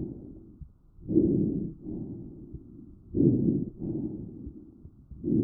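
Vesicular breath sounds picked up through an electronic stethoscope over the lungs: a rushing sound with each breath, louder on the breath in and fainter through the start of the breath out, about one breath every two seconds. These are normal, healthy lung sounds.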